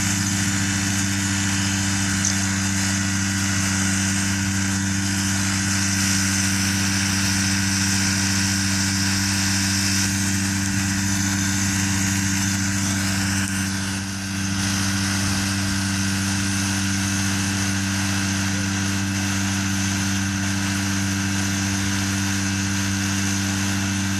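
Powered parachute's engine and pusher propeller idling at a steady pitch while the cart stands still before its takeoff run, briefly dipping in level about two-thirds of the way through.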